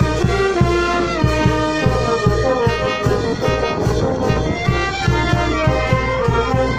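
Brass band music: horns playing a held, stepping melody over a quick, steady drum beat.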